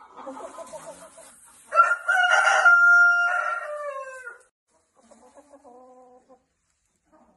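A chicken clucking softly, then giving a loud, long call of about two and a half seconds that holds one pitch and falls away at the end, followed by a few quieter clucks.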